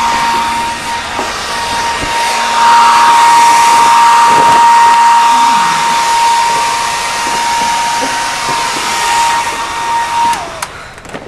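Small electric fan motor running: a steady whine over a rush of air, switched off about ten seconds in, the whine sliding down as it stops.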